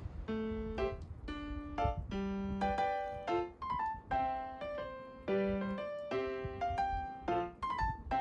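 Background music: a light electric-piano tune, single notes played at an even pace, each note fading after it is struck.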